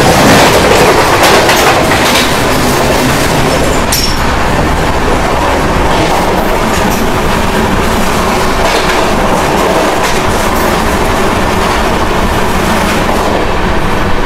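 A train running at speed along the track past a freight train of covered wagons on the adjacent line, with a steady rush of wheels on rail and clickety-clack. It is loudest in the first couple of seconds while the wagons pass close by.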